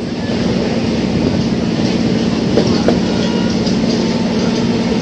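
Electric suburban local train running at speed, heard on board: a steady noise of wheels on rail with a steady low hum and a few faint clicks of wheels over rail joints.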